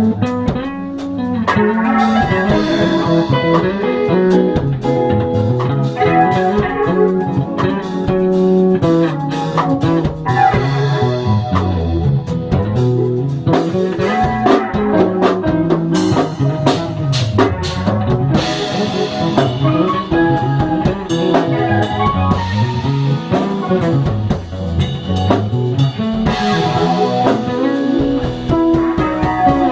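Bass guitar playing a solo, a run of notes climbing and falling in the low register, with a drum kit keeping time behind it.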